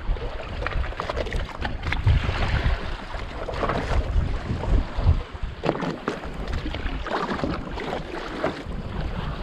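Wind buffeting the microphone over water sloshing and splashing against the side of a small boat, with scattered light knocks.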